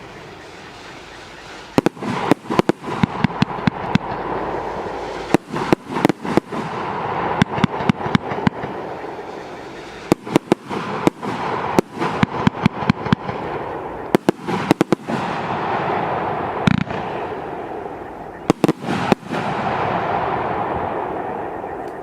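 Multi-shot firework cake (TK-Service TKB891 Strike, 12–30 mm calibres) firing. Rapid volleys of sharp shots come in clusters every few seconds, with a hiss between them that swells and fades. The firing dies away near the end.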